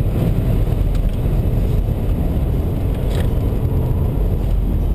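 BMW 123d's twin-turbo four-cylinder diesel engine running under way, heard from inside the cabin together with tyre and road noise as a steady low rumble.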